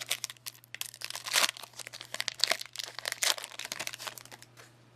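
Foil booster pack of Pokémon trading cards being torn open and crinkled by hand: a run of sharp crackles, dying away near the end.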